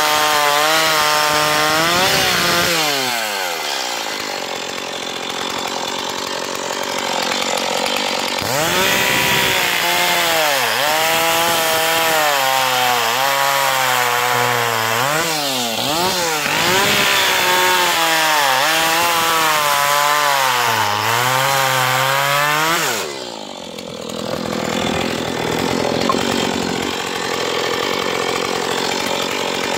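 Stihl chainsaw cutting dry black locust logs at full throttle, the engine pitch dipping and recovering as the chain bites. It falls to idle about three seconds in, revs back up into another cut at about eight seconds, and drops back to idle for the last several seconds.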